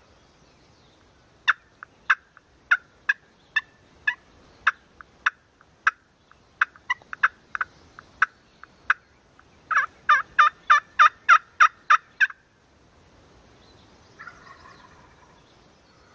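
Hand-operated turkey call, wet from the rain, worked in a series of short yelps at about two a second, then a quicker run of about ten louder yelps that stops abruptly. The uploader calls it bad calling because the calls were wet.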